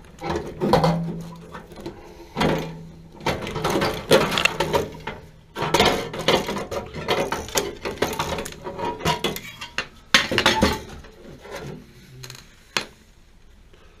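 Metal parts in the burner compartment of a gas water heater being handled: irregular clattering, scraping and knocks of sheet metal, loudest about four and ten seconds in, thinning out near the end.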